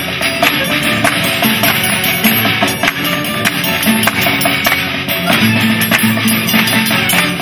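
Background music with guitar and drums keeping a steady beat.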